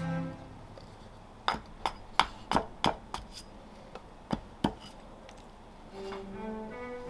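Carving axe chopping a green-wood blank held upright on a wooden chopping stump: a quick series of sharp strikes, then two more about a second later. Solo cello music comes back in near the end.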